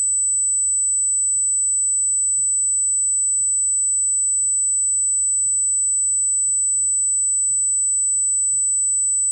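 A steady, high-pitched electronic tone held at one pitch without a break, over a faint low hum.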